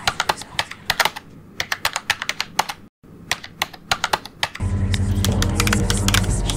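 Keys clicking rapidly and unevenly, as in typing on a keyboard, with a brief total dropout about halfway through. Music with a steady low bass comes in about two thirds of the way in.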